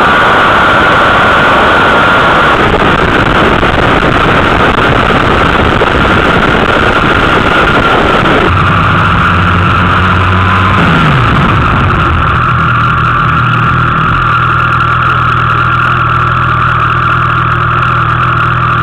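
Motorcycle at high speed, a heavy roar of wind and engine on the bike-mounted microphone. After an abrupt change about eight and a half seconds in, the engine note drops in pitch as the bike slows, then settles into a steady idle.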